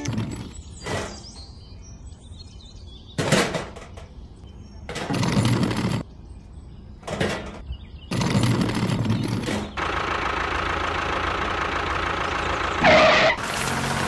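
Several short whooshing sounds, then, about ten seconds in, the steady whir of a small electric motor driving a model tractor, with gravel scraping under its blade near the end.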